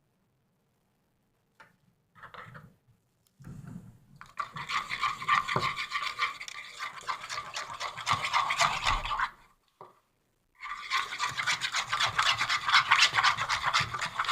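Fast, steady scraping and stirring in a container, like a spoon or stick working a thick slime mixture round a cup, in two long bouts with a short pause between them.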